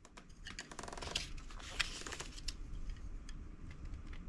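A quick run of small rapid clicks, then a short rustling scrape and a few scattered ticks, from something being handled close by.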